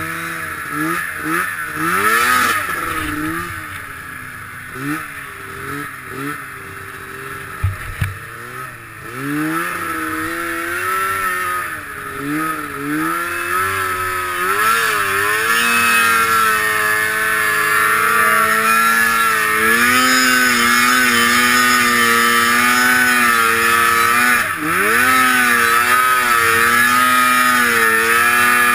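Snowmobile engine revving up and down in short throttle surges through deep powder, then held at high, steady revs from about halfway through, with one brief drop near the end.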